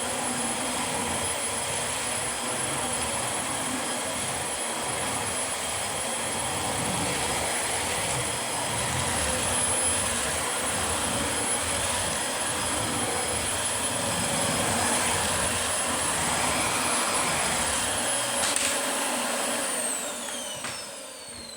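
Dyson DC25 Animal upright vacuum cleaner running steadily with a high-pitched whine. Near the end it is switched off and the motor winds down, its whine falling in pitch, with a knock or two around the shut-off.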